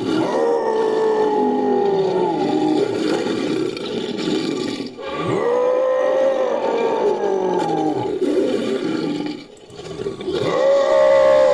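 Big-cat style creature roars mixed from lion roar recordings and a human voice. Three long roars each slide down in pitch: one is already under way at the start, one comes about halfway through and one starts near the end.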